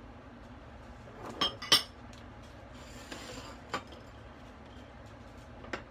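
Kitchen things being handled on a counter: a few sharp clinks and knocks, the two loudest close together about a second and a half in, with a soft rustle around the middle.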